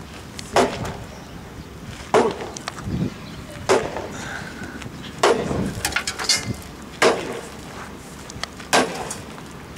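Hammer blows striking the steel body of a concrete-filled safe, six heavy strikes about one and a half to two seconds apart, in a test of its resistance to being broken open.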